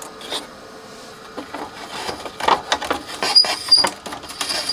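Flat ribbon cables being worked free of their circuit-board connectors: scattered small plastic clicks, rubbing and scraping, busier in the second half, with a couple of short high squeaks about three and a half seconds in.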